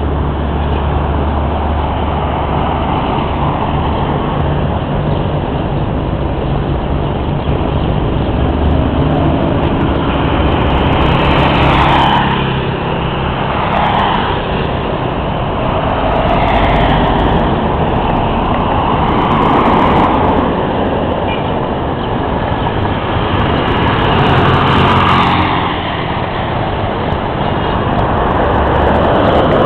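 Engine drone and road noise of a moving road vehicle, heard from inside as it drives along: a steady low hum under a rushing noise, swelling in loudness several times.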